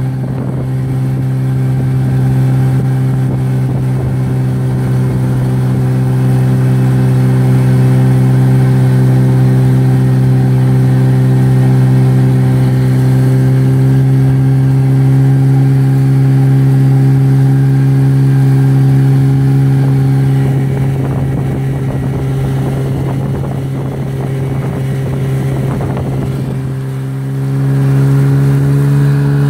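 Golfstream (Parsun) T8BM 8 hp two-stroke outboard motor running steadily, pushing an inflatable boat at cruising speed. It eases off about twenty seconds in and picks up again near the end.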